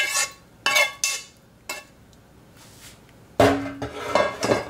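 A large metal spoon stirring thick cornbread dressing in a mixing bowl, scraping and knocking against the bowl in short strokes, with a louder, longer clatter about three and a half seconds in.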